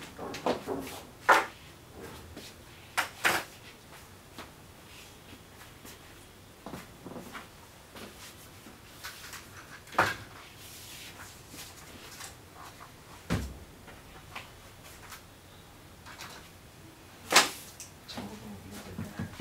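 Intermittent handling noises on a desk: scattered clicks, knocks and rustles as packaging, a plastic bag and papers are moved about, with a dull low thump about two-thirds of the way through.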